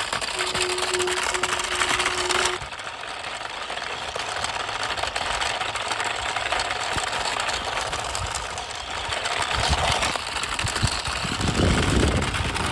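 Remote-control construction mixer truck toy running: the rough whirr of its small electric motors and plastic gears. A steady tone, broken by short gaps, sounds over it for the first two and a half seconds, then stops.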